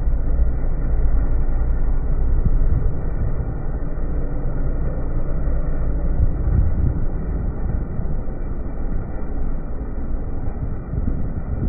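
Polaris snowmobile running steadily while towing a sled over packed snow, heard from the sled as a continuous low rumble.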